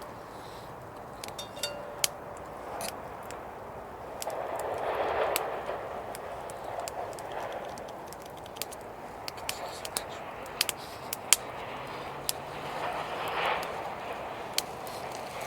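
Campfire crackling, with sharp irregular pops and snaps and a soft rushing sound that swells twice.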